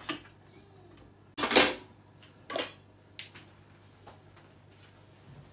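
Metal spoon knocking and scraping against a metal roasting tin of roast potatoes as they are turned: a few separate clanks, the loudest about a second and a half in and another about a second later.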